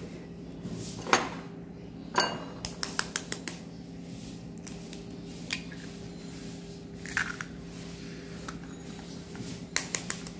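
Eggs being cracked against the rim of a ceramic bowl: sharp taps of shell on china, with a quick run of light clicks about two seconds in and scattered single taps after.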